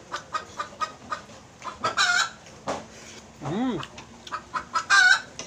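Chickens clucking in a quick repeated patter, with two louder calls, one about two seconds in and one near the end. A brief low rising-and-falling sound comes midway.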